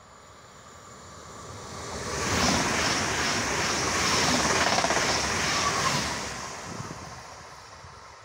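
Pesa Dart electric multiple unit of PKP Intercity passing at speed: the rushing noise of wheels on rail and air swells as it approaches, stays loud for about four seconds as the cars go by, then fades as it recedes.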